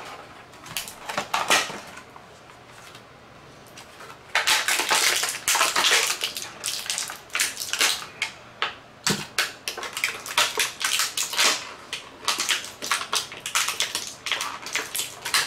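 Clear plastic packaging tray crackling and clicking as it is handled and pulled out of a cardboard toy box. A few crackles at first, then dense, irregular crackling from about four seconds in.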